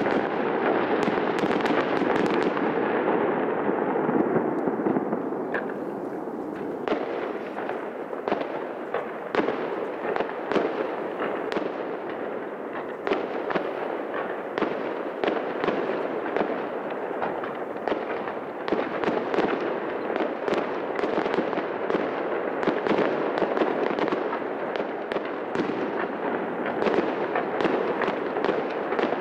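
Fireworks display: aerial shells bursting in quick succession, many sharp bangs and crackles over a steady rumble.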